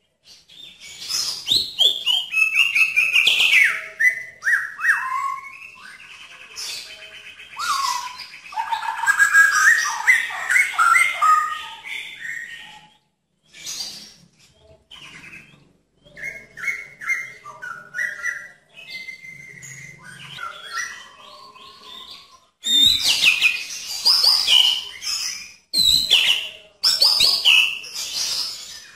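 White-rumped shama (murai batu) singing a long, varied song of clear whistles, fast trills and sharp chattering notes, broken by short pauses. Loud rapid bursts come near the end.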